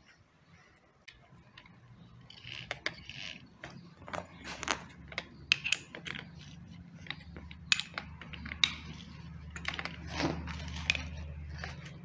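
Keyed drill chuck being tightened on a twist drill bit with its chuck key: irregular sharp metallic clicks and small rattles as the key's teeth work the chuck's gear ring.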